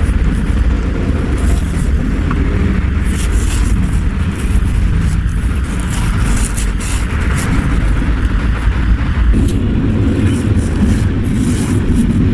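A steady low rumble is the loudest sound, with short scraping and rustling sounds scattered through it as separator sheets are slid between the lead plates of a lead-acid battery cell.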